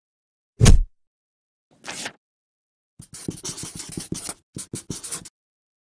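A heavy thump, then a short swish about two seconds in, then a marker scratching and squeaking across paper in a quick run of short strokes as it writes a line of words.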